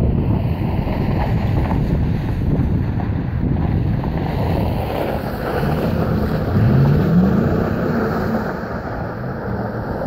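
Wind buffeting the microphone, with a four-wheel-drive pickup truck's engine rising in pitch as the truck drives past close by about two-thirds of the way in.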